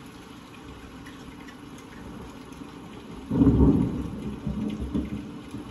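Thunderstorm: steady rain, then a sudden loud crack of thunder a little over three seconds in that rolls on in lower, uneven rumbles.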